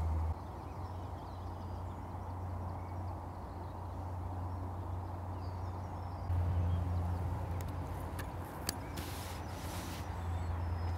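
Outdoor canal-bank ambience: a steady low rumble, with faint birdsong. Near the end come a sharp click and a brief hiss.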